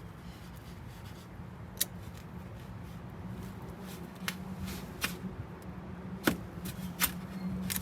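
Hand tools clinking and clicking against the brake hose fittings, about half a dozen sharp, irregular clicks, over a steady low hum.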